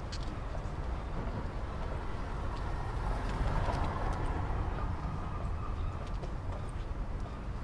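Steady city traffic rumble, swelling slightly about halfway through.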